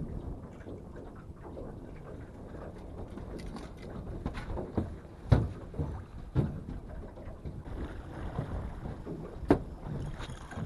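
Wind and water noise around a drifting fishing boat, with a few sharp knocks on the boat in the second half, two of them louder than the rest.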